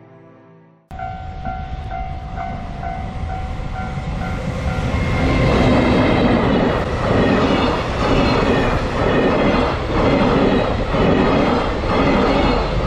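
Level-crossing alarm bell dinging about twice a second. From about five seconds in, a freight train hauled by an EF210 electric locomotive comes through, growing loud, its wheels clacking over the rail joints in a regular beat.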